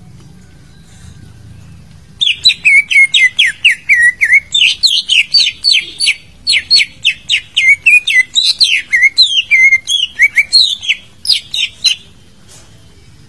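Cucak ijo (green leafbird) song: a fast, loud run of sharp down-slurred whistled notes, several a second, starting about two seconds in and breaking off about a second before the end. A faint low hum lies under the quiet opening.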